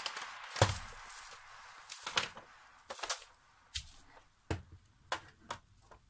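Hard plastic parts of a Roomba 580 robot vacuum handled and fitted together as its top cover is set back onto the body, giving about seven sharp, irregularly spaced clicks and knocks.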